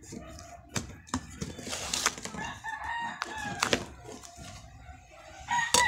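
Packing tape being ripped and a cardboard box handled, with sharp rips and clicks, while a rooster crows in the background about two seconds in and again near the end.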